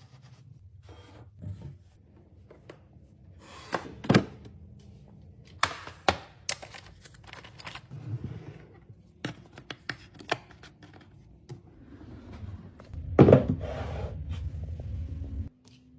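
Kitchen items and containers being handled and set down: scattered sharp clicks and knocks, with a louder stretch near the end that stops suddenly.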